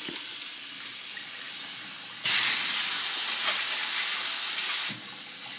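Kitchen faucet running water over chopped broccoli in a plastic colander, rinsing it. The splashing gets much louder about two seconds in for a few seconds, then drops back.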